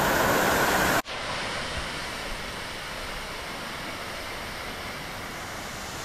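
Waterfall in full wet-season flow, a steady rush of falling water: loud and close for about the first second, then an abrupt cut to a quieter, more even hiss of water falling from a tall cliff.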